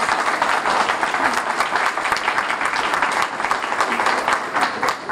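Audience applauding, a dense patter of many hands clapping that begins to fade at the very end.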